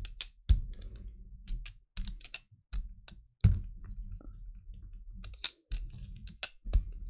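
Soft rubber brayer rolled through acrylic paint and across a gel plate in short strokes: sharp, irregular clicks and tacky crackles over a low rumble that comes with each stroke.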